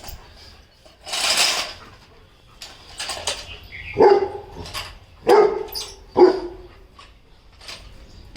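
Seven-month-old Rottweiler puppy barking three times, a second or so apart, after a short hissing rush about a second in.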